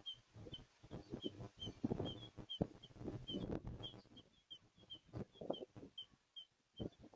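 Fowl clucking in low, irregular calls, with a faint high chirp repeating about three times a second.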